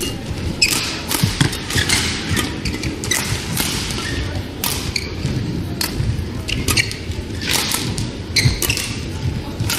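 Badminton rackets striking a shuttlecock in a fast doubles rally: a string of sharp hits at irregular intervals, roughly two a second, over steady low background noise of the hall.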